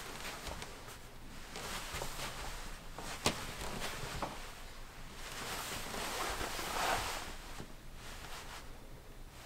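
Shuffling steps in slippers and the rustle of clothing as a person turns on the spot, with a sharp click about three seconds in and a louder rustle near the end.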